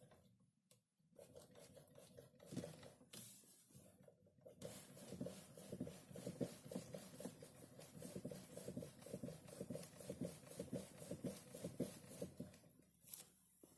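Steering of a 2015 Nissan Leaf knocking as the wheel is rocked back and forth around its centre position: a long run of faint, rapid, dull knocks, starting about four seconds in and stopping shortly before the end. The knock comes only near the straight-ahead point.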